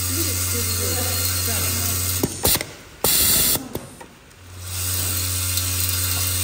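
Vibratory screw rivet bowl feeder running: a steady low electromagnetic hum with the rattle of screw rivets shaking along the spiral track. It switches off a little after two seconds, a short loud noise burst follows, and it starts up again about four and a half seconds in.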